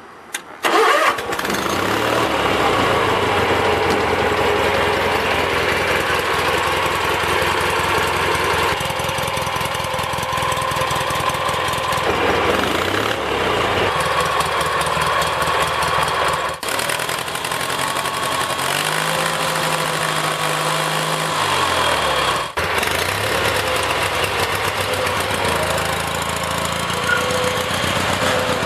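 Kohler Magnum 18 hp opposed-twin engine on a Snapper zero-turn mower cranking on the key with the choke partly on, catching within about a second, then running steadily. Its speed rises and falls a couple of times.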